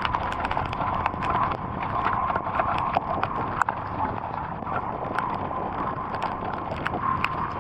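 Heavy rain falling, a steady hiss with many irregular sharp ticks of individual drops striking a hard surface.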